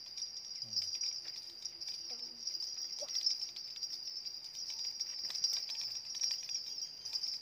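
Steady high-pitched chorus of insects trilling without a break, with faint scattered clicks.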